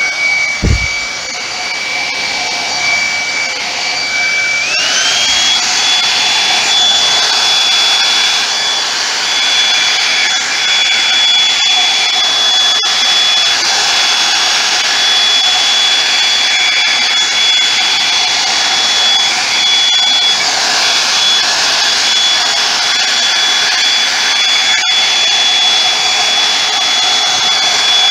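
Handheld hair dryer running with a steady rush of air and a thin motor whine that jumps to a higher pitch about five seconds in. A low thump just under a second in.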